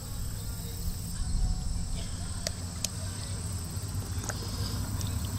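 Steady high chirring of crickets, over a low rumble, with a few sharp clicks about two and a half, three and four seconds in.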